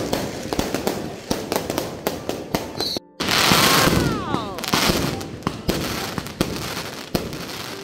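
Fireworks going off in rapid, loud crackling bangs. After a brief break about three seconds in, a denser run of crackles comes in with a few whistles sliding down in pitch.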